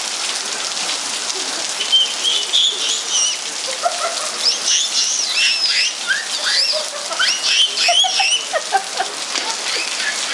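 Heavy rain falling steadily. From about two seconds in until near the end, short high-pitched cries sound over it.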